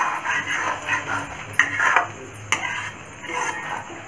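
A metal spatula stirs and scrapes thick chicken masala around a metal kadai in repeated strokes, clacking against the pan's side a few times.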